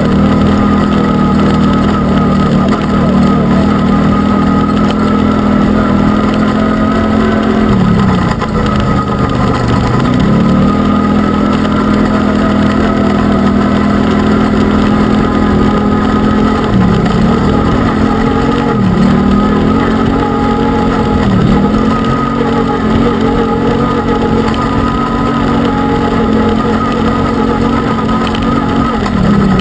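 Arctic Cat Wildcat UTV engine running at a steady high speed. The pitch drops briefly and climbs back about five times as the throttle is lifted and reapplied.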